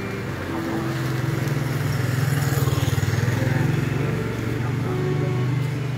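A motor vehicle engine running close by, swelling over the middle few seconds and then easing off, with people talking over it.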